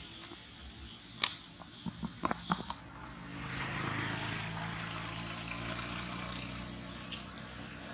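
A few sharp clicks and rustles in the first three seconds, then a steady engine drone with a low hum from a passing motor vehicle or aircraft.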